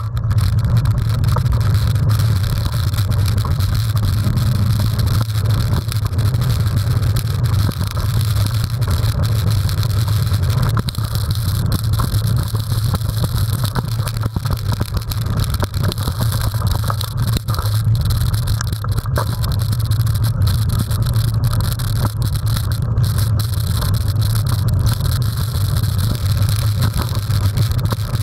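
Mountain bike ridden fast along a dirt trail: a steady loud low rumble of wind on the microphone, with constant rapid rattling and knocking from the bike over the rough ground.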